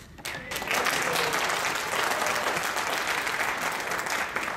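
An audience applauding in answer to a vote called by applause. The clapping builds within the first half second, holds steady, and dies away near the end.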